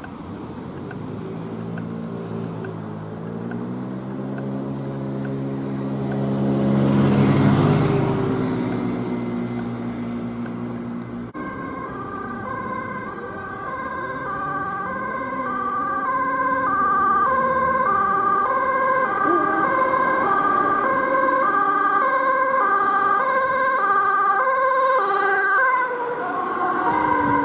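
A vehicle engine accelerating, its pitch rising and loudest about seven seconds in as it passes close. About eleven seconds in it cuts to a Dutch ambulance's two-tone siren, stepping between a high and a low tone about every half second, with the ambulance passing close near the end.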